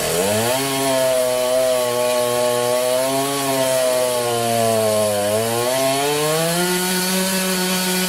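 Chainsaw running under load as it cuts through wood, its engine pitch sagging around the middle and climbing again near the end.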